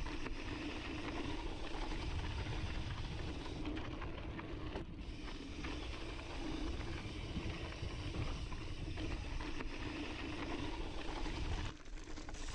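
Onboard riding noise from a cross-country mountain bike coasting down a dry, dusty dirt trail: tyres rolling and wind on the camera microphone as a steady rushing noise. It drops away near the end as the bike slows to a stop.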